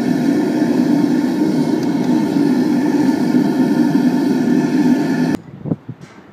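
Gas burner of a small aluminium-melting furnace running steadily and loudly while the melt is tended, then cutting off abruptly about five seconds in, followed by a single light knock.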